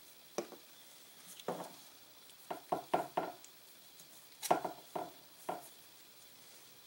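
Irregular light knocks and clicks, about nine, from gun parts and cleaning tools being handled and set down on a workbench.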